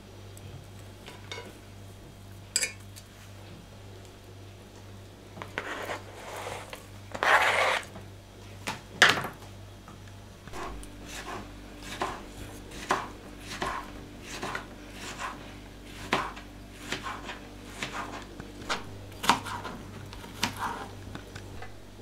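Irregular clinks, taps and scrapes of kitchen utensils against an enamel pot as boiled potato is pressed through a hand-held grid egg slicer and peeled. A low steady hum comes in about halfway.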